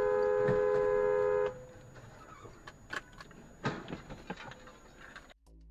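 Car horn held on a steady two-tone blast that cuts off about a second and a half in. Quieter road noise with a few short knocks follows.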